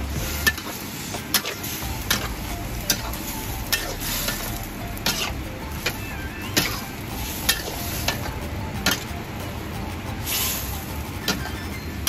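A metal spatula stirs and scrapes seafood and oyster mushrooms around a wok in a loose, saucy stir-fry. The spatula clanks against the pan about once a second over a steady sizzle.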